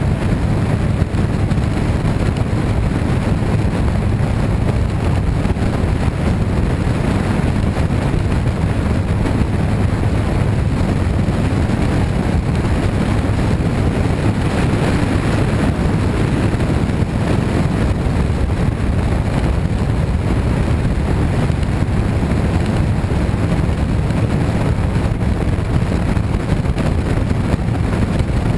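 Motorcycle riding at freeway speed: a steady engine drone under heavy wind and road noise on a camera mounted low on the bike.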